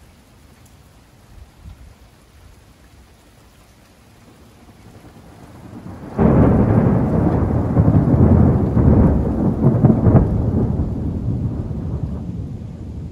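Steady light rain, then thunder: a low rumble builds and breaks into a loud clap about six seconds in. It then rolls on with several peaks for about seven seconds.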